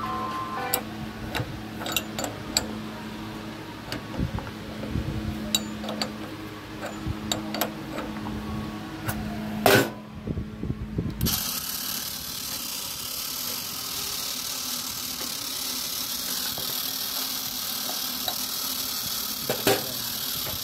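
Metal clinks and knocks as the die hub nut on an automatic agarbatti (incense stick) making machine is tightened by hand, over a steady low hum. A sharp knock comes about ten seconds in, and after it a steady hiss takes over.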